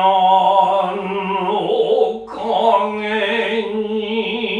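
Noh chanting (utai): a voice drawing out long syllables with a slow wavering pitch, breaking briefly for breath about two seconds in.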